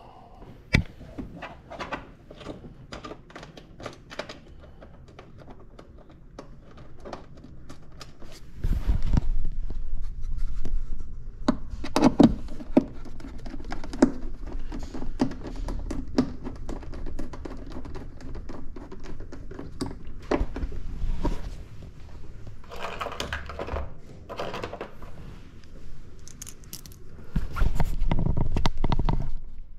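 Hand work on a jet ski's plastic console: scattered clicks and taps of a metal bolt and socket being handled, and thunks and bumps as parts are pressed into place. It is louder and busier from about a third of the way in, with a loud bumping stretch near the end.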